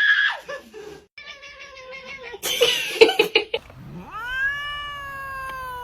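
Domestic cat yowling: a wavering cry, then a short noisy scuffle with sharp clicks about two and a half seconds in, then one long drawn-out meow that rises and slowly falls in pitch from about four seconds in.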